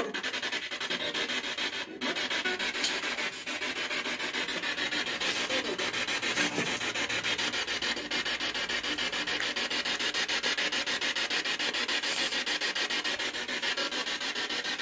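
Spirit box, a handheld radio rapidly sweeping through stations, played through a small external speaker: a steady rasping hiss of radio static chopped into a fast, even stutter.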